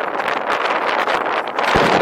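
Wind noise from air rushing over the microphone of a camera riding on an electric unicycle: a steady rushing hiss. A short low bump comes near the end, after which the noise grows fuller.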